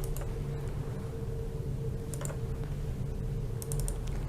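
A few short, light clicks over a steady low hum: one near the start, one about two seconds in, and a quick run of several about three and a half seconds in.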